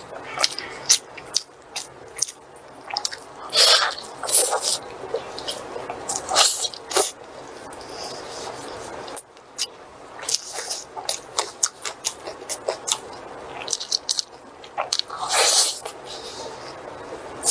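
Close-miked eating: biting and chewing food with irregular mouth clicks and smacks, and a few louder noisy bursts about four, six and fifteen seconds in.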